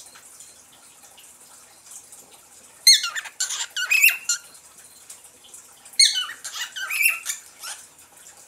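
Pet cockatiel chirping: two short bursts of quick, squeaky calls that glide up and down, the first about three seconds in and the second about six seconds in.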